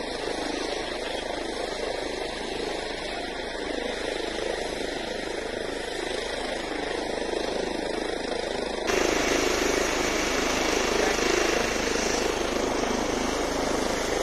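Ambulance helicopter running, a steady engine and rotor noise. It jumps louder and brighter about nine seconds in.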